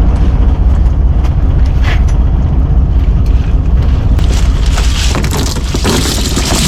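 Small fishing boat's engine running with a low, steady rumble, mixed with wind and water noise and a few scattered knocks.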